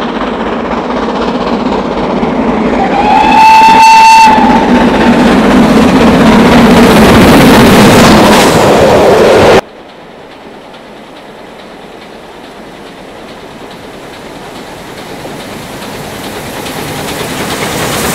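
Steam locomotive and train approaching, sounding a steam whistle once about three seconds in, a single note lasting just over a second. The sound drops suddenly about halfway through, then a second steam train is heard approaching, growing steadily louder.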